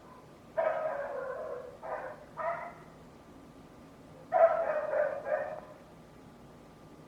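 A neighbour's dog giving long, high-pitched cries, three in a row starting about half a second in and two more about four seconds in.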